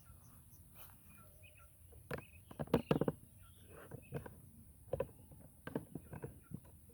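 A string of short knocks and clicks, loudest and most clustered about three seconds in, with faint bird chirps in the background.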